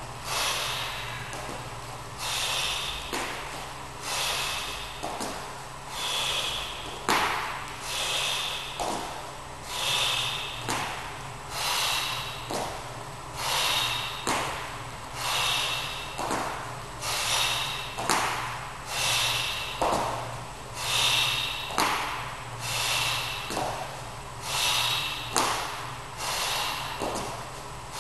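A man's hard, rhythmic breathing under exertion, a forceful exhale about every one and a half to two seconds, with dull knocks of hand-held dumbbells set down on a floor mat between breaths, as he does plank dumbbell rows.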